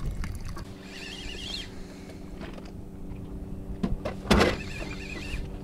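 A motor running steadily with an even hum, and a single sharp knock about four seconds in.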